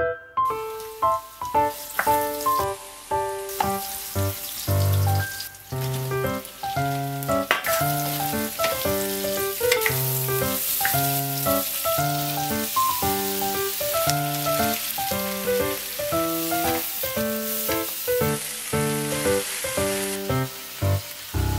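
Cocktail sausages and chopped vegetables sizzling in hot oil in a frying pan as they are stir-fried with a wooden spatula. The sizzling starts about half a second in and carries on under background music.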